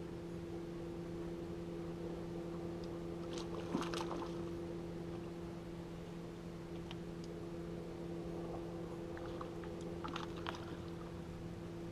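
A steady low electric hum from the bass boat, with brief clusters of clicks and rattles from the rod and reel about four seconds in and again near the ten-second mark while a hooked fish is played.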